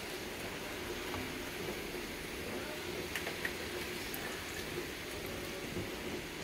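Steady hiss and bubbling of stovetop cooking: a large pot of eggs at a boil and a pan of cabbage cooking in a little water. A few light clicks come a little after three seconds in.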